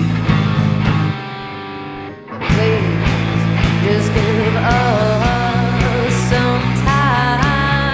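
A live rock band plays: electric keyboard, electric guitar and drum kit. About a second in, the drums and low end drop out and leave held keyboard chords. The full band crashes back in about a second and a half later, with a wavering melody line over the steady beat.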